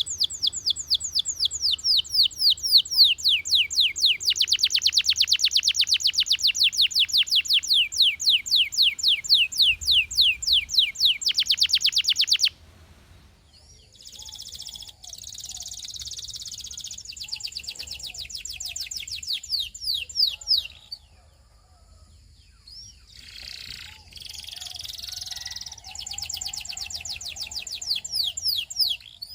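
Russian canary singing long rolls of rapid, repeated falling whistled notes, which change pace from roll to roll. The loud song cuts off suddenly about twelve seconds in. Softer, broken phrases follow, with a brief pause, and then rolling trills start up again near the end.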